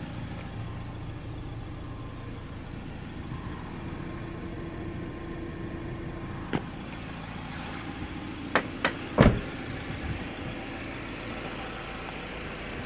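An engine running steadily at idle. Two-thirds of the way through there are a few sharp clicks and then a heavier thump, the loudest sound.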